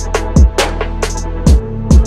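Background music with an electronic beat: deep kick drums that drop in pitch, three times, over a steady bass, with quick hi-hat ticks.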